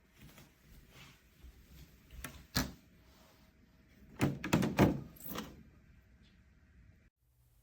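Plastic storage drawers being handled: a few scattered knocks, then a quick cluster of clattering knocks about four seconds in.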